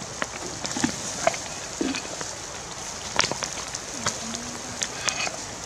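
Open wood fire crackling, with irregular sharp pops over a steady hiss, under fish grilling on a wire rack.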